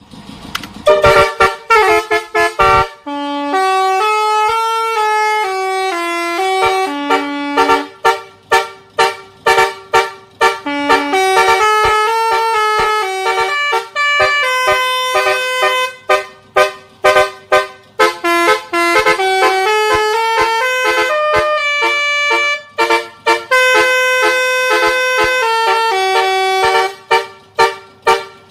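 Telolet multi-tone musical horn fitted to a motorcycle, playing a tune: loud held notes stepping up and down in pitch, broken several times by runs of quick, short toots.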